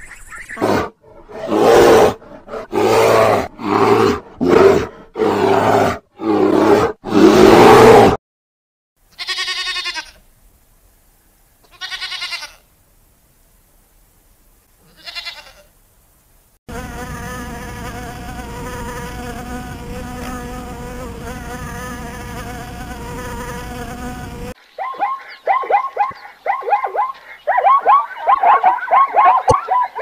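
A run of different animal sounds. First mallard ducks quack loudly, about eight times, then three wavering bleats of sheep. A steady insect buzz follows for about eight seconds, and near the end comes a fast run of short barking calls from zebras.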